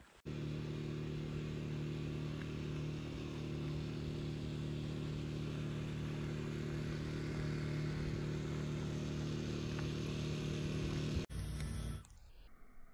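An engine running at a steady, unchanging speed, giving an even hum that cuts off suddenly about eleven seconds in.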